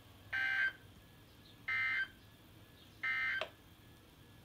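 Three short bursts of Emergency Alert System digital data tones, a rapid two-tone warble, each about a third of a second long with about a second between them: the end-of-message code that closes a weather alert broadcast.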